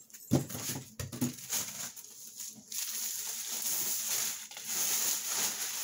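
Packing pieces being pulled off a new folding laptop table: a few knocks and clicks in the first second, then steady rustling and rubbing of packaging from about three seconds in.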